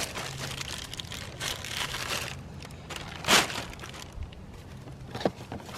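A plastic trash bag being handled, rustling and crinkling, with one sharper crinkle about three seconds in.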